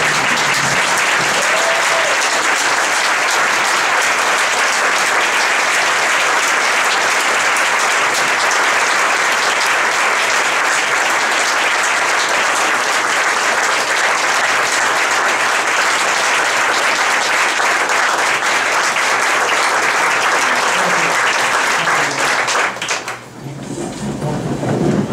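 Audience applauding steadily for a long stretch, then dying away near the end.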